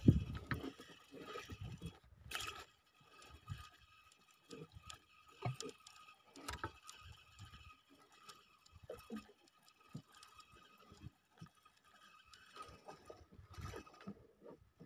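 Small wooden boat rocking on a light swell, with water slapping at the hull and scattered faint knocks and clicks against the boat.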